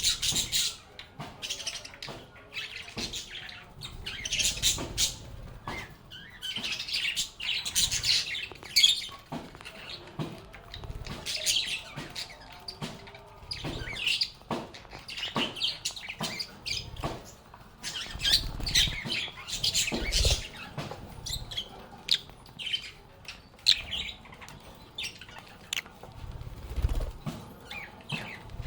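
Lovebirds chirping and chattering in quick, shrill bouts that come every second or two, with a couple of low thumps in the second half.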